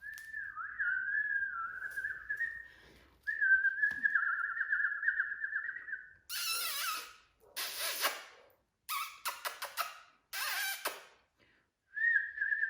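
A person whistling in long, wavering notes, with several short breathy hissing sounds in between.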